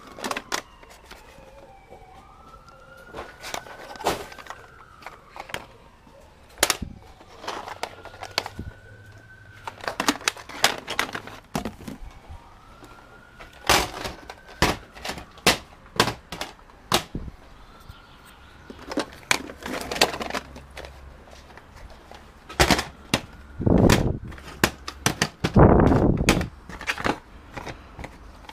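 Plastic cassette tape cases clacking and rattling as they are picked up and set down, with a louder rustling scrape near the end. A faint siren wails up and down several times in the background.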